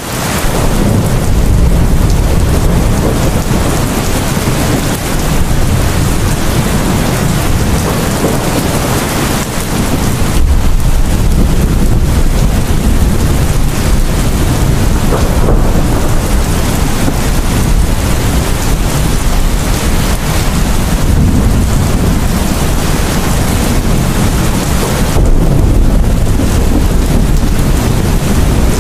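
Heavy rain pouring steadily in a thunderstorm, with a deep rumble of thunder underneath; it fades in at the very start.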